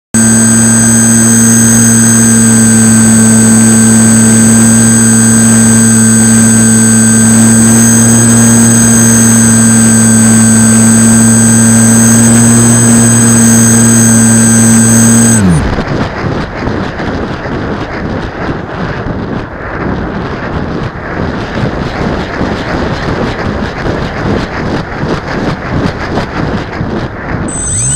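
Electric motor and propeller of a foam RC glider running at a steady high throttle right beside the camera, with a high whine. About halfway through the motor cuts and spins down, leaving a fluctuating rush of wind over the airframe as the plane glides with the motor off; near the end the motor spools back up.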